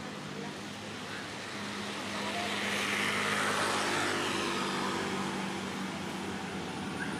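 A motor vehicle passing close by: a steady engine hum under tyre and engine noise that swells to a peak about three and a half seconds in and then slowly eases, its pitch sliding down as it goes past.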